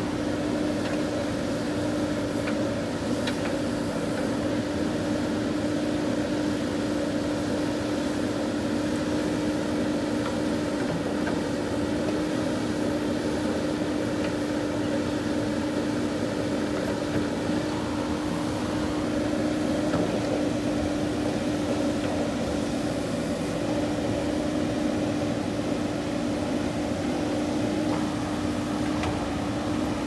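JCB backhoe loader's diesel engine running steadily under working load as the backhoe arm digs soil, a constant droning tone.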